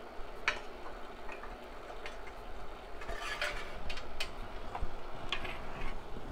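Light metallic clinks and scrapes as the roaster's sheet-metal chaff tray is handled, in scattered knocks with a busier cluster about three seconds in. A steady hiss from the roaster, which is heating up, runs underneath.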